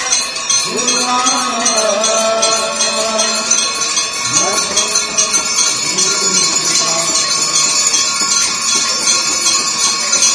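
Ritual bells of the Ganga aarti ringing continuously, struck rapidly several times a second, with lasting ringing tones. Voices rise and fall over the bells about a second in and again about four seconds in.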